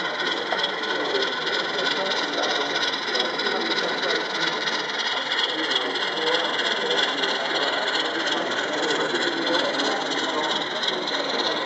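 Background chatter of many people talking at once, a steady hubbub of voices with no single speaker standing out.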